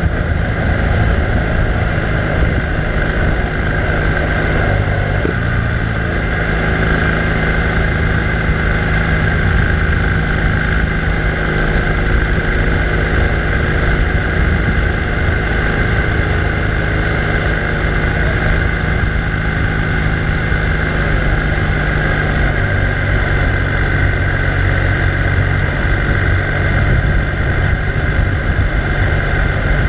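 BMW R1200R LC's boxer-twin engine running steadily under way, heard from on the bike with constant wind rush; the engine note shifts about five seconds in.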